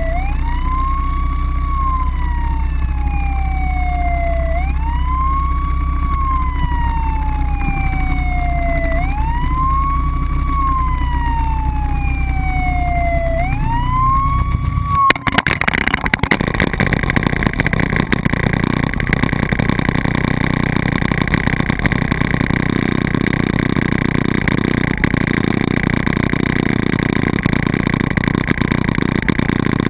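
Police motorcycle siren on a slow wail, rising quickly and falling slowly about every four and a half seconds, over a low steady hum. About halfway through it cuts off abruptly, giving way to a steady rushing, crackling noise.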